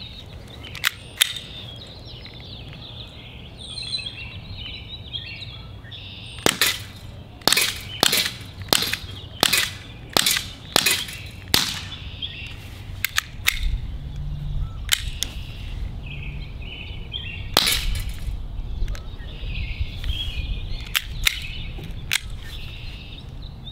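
Sig P365 4.5 mm (.177) CO2 blowback BB air pistol firing a string of sharp shots in irregular groups, about fifteen in all, with a quick run of about eight in the middle. The CO2 cartridge is already past a hundred shots.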